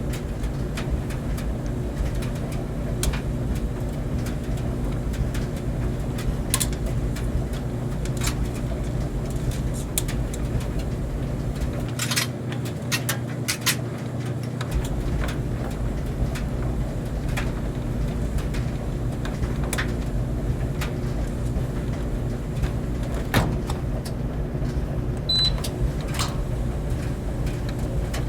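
Clothes dryer running: a steady motor hum and drum rumble, with scattered light clicks and knocks through it.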